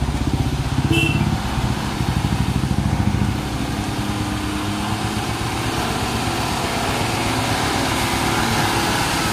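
A motorcycle engine runs close by with a quick pulsing beat and pulls away. A heavy diesel truck engine then grows steadily louder as a Tata tipper truck approaches and passes.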